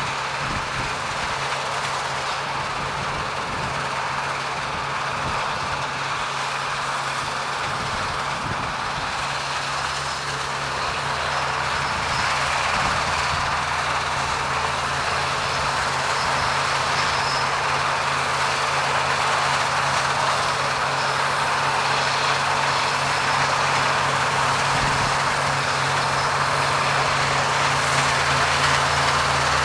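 New Holland CX880 combine harvester running steadily while cutting wheat, with its engine tone and the dense noise of the header and threshing machinery. It grows gradually louder partway through.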